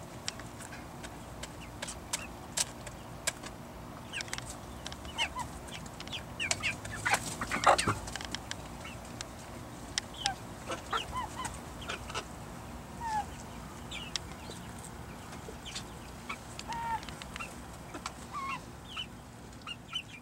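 Chickens clucking in short calls while they eat, with many sharp little clicks of pecking at the feed. The loudest flurry of clicks and calls comes about seven to eight seconds in.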